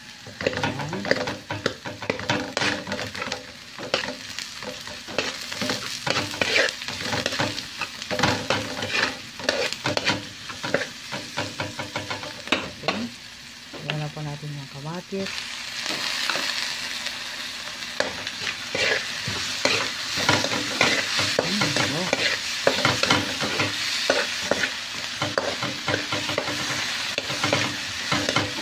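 Chopped onion and garlic frying in oil in a wok, sizzling while a metal spatula stirs and scrapes against the pan with frequent clicks. About halfway through, the sizzle turns suddenly louder and brighter as chopped tomatoes go into the hot pan.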